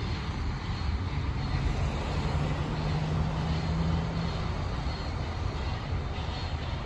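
Steam locomotive Southern Railway 154 working out of sight: a continuous low rumble mixed with street traffic noise, and a single low steady tone held for about two seconds near the middle.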